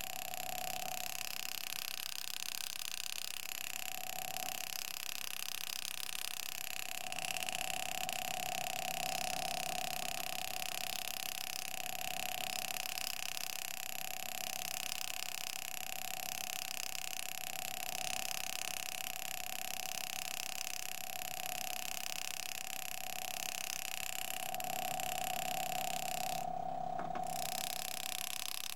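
Power engraving handpiece buzzing with a steady high-pitched tone that starts and stops as the graver cuts fine lines into the coin, over a constant hiss.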